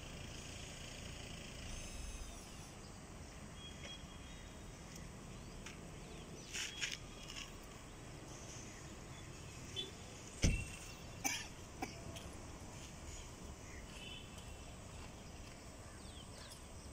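Faint outdoor background noise with a few brief sharp sounds near the middle, the loudest about ten and a half seconds in.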